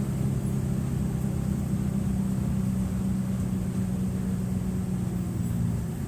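Mercedes-Benz OF-1723 bus's OM906LA six-cylinder turbodiesel engine running at a steady speed, an even low drone.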